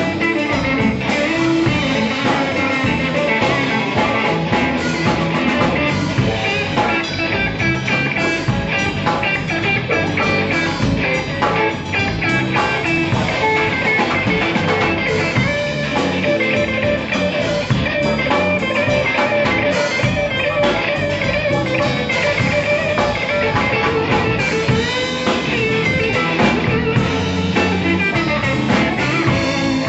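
Live blues-rock band playing an instrumental passage: electric guitar over bass, drum kit and keyboard, loud and unbroken.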